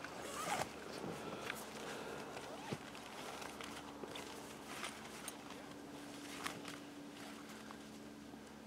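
The zipper on an Eskimo ice-tent carry bag being worked open, with scattered small clicks and rustles of the bag being handled.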